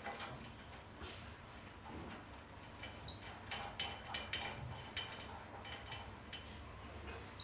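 Light metallic clicks and taps from a metal carrying frame being clamped onto a brass skeleton clock's winding arbors, with a quick cluster of clicks about halfway through.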